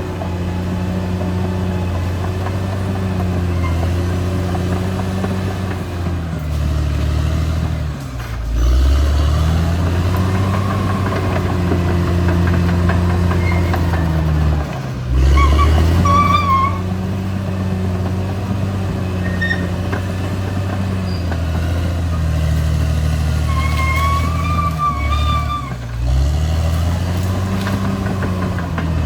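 Caterpillar D6R XL bulldozer's diesel engine running hard. Three times its note sags sharply in pitch and then climbs back, as the engine is pulled down under load. Short high-pitched squeals come in around the middle and again near the end.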